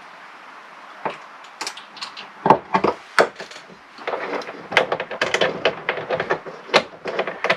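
Clicks, knocks and rattles of battery cables and terminal hardware being handled while they are connected to a battery's terminals. Irregular sharp knocks begin about a second in and come thick and fast from about halfway through.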